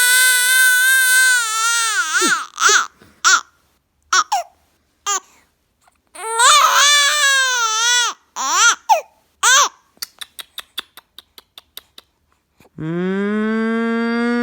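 A two-month-old baby crying, upset by humming: two long high wails with short cries between them, then a quick run of about a dozen faint clicks. Near the end a woman starts humming one steady, lower note.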